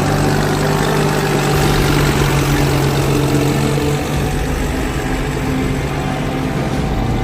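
Deutz-Fahr Agrolux 50 hp tractor's diesel engine running steadily with a low hum.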